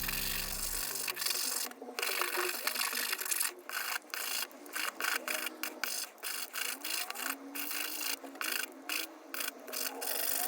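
Small wooden box being sanded by hand: gritty rubbing strokes of sandpaper on wood, about two strokes a second.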